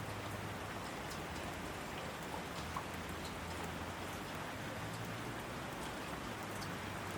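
Heavy rain pouring steadily, with scattered sharp drop ticks and a low steady hum underneath.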